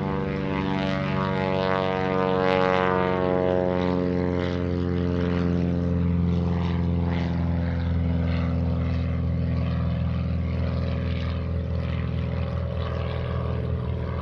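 DHC-1 Super Chipmunk's piston engine and propeller at full power as the plane climbs away after takeoff: a steady drone whose pitch falls slightly over the first few seconds as it passes, then holds steady and eases a little near the end.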